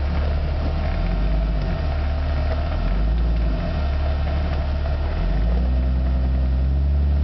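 Jeep Cherokee engine running at low revs, heard from inside the cabin while crawling off-road. Its low note rises and falls every second or two as the throttle is worked.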